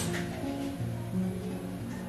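Background music with plucked acoustic guitar notes.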